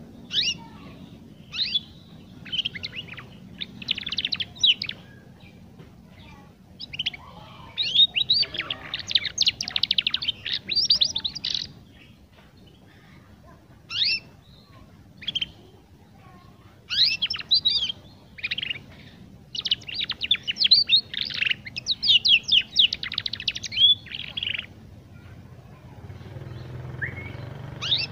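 Young domestic canary twittering in bursts of rapid high chirps and trills, with the longest runs lasting several seconds and short pauses between. It is the rambling practice song of a juvenile canary learning to sing.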